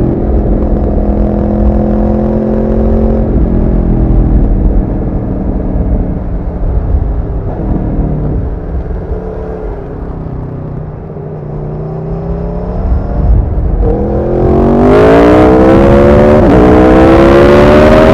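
Aprilia Tuono motorcycle engine under way: revs climb in gear and drop at an upshift about three seconds in, ease off through the middle, then rise hard and loud from about fourteen seconds, with another upshift near the end.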